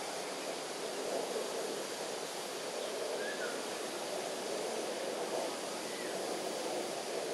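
Steady outdoor ambient noise, an even low rushing hiss with no distinct events, and two faint short chirps about three and six seconds in.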